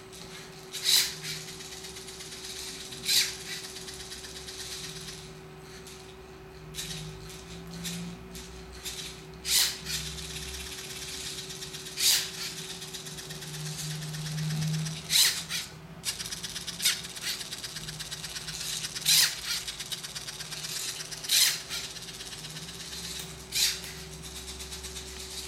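Lego Mindstorms NXT 2.0 man-eating plant robot working: its motor whirs as the plastic Lego jaws open, and they snap shut with sharp clacks, about ten times at irregular intervals. A faint steady hum runs underneath.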